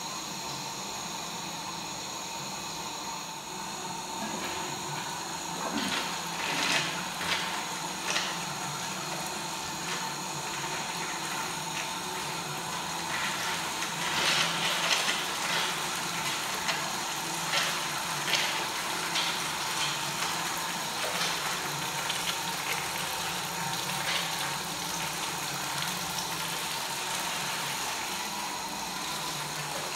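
Automatic cistern flushing a row of ceramic Armitage Shanks Sanura urinals. Water rushes down the flush pipes into the bowls and drains away, with irregular splashing that builds a few seconds in.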